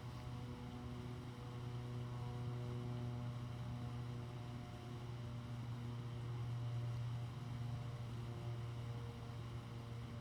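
Steady low hum, with fainter higher tones that fade in and out.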